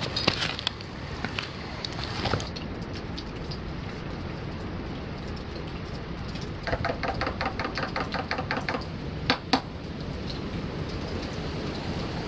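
Steady rain hiss, with scattered clicks and knocks. Midway, a rapid trill of repeated notes, about seven a second, lasts about two seconds.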